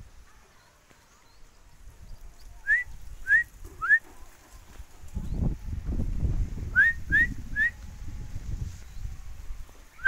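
Short rising whistled notes: three in quick succession a little under three seconds in, three more near seven seconds, and another at the very end. A low rumbling noise fills the stretch between the two sets.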